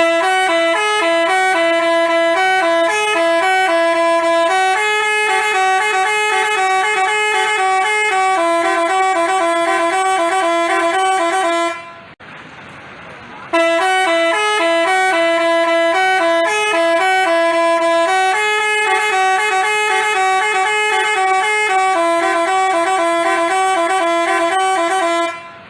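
Basuri-type telolet bus horn, a multi-tone electric horn, playing a melody of short stepped notes. The tune runs through twice, with a break of about a second and a half near the middle.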